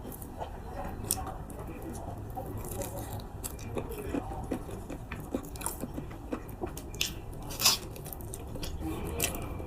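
Close-up mouth sounds of a person eating durian flesh: chewing with soft wet smacks and small clicks. One sharper click comes a little past the middle.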